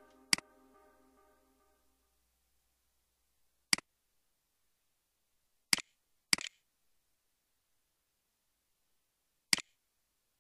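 Computer mouse clicking: five sharp single clicks a few seconds apart. Brass background music fades out over the first two seconds.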